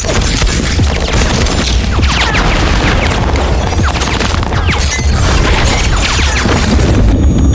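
Film battle sound: dense, rapid gunfire mixed with booms and a heavy low rumble, with no let-up.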